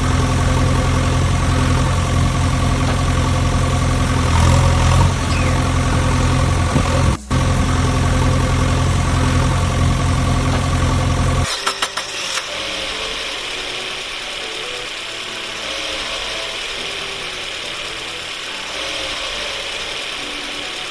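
Engine idling with a steady, even hum, cutting out for an instant about seven seconds in. About halfway through it gives way to a quieter, lighter engine sound after a brief clatter.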